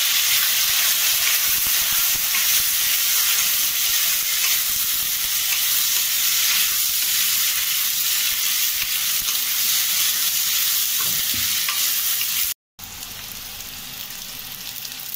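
Freshly added raw potato cubes sizzling in hot sunflower oil in a steel kadhai, stirred with a wooden spatula. About twelve and a half seconds in, the sizzle cuts out for a moment and comes back quieter.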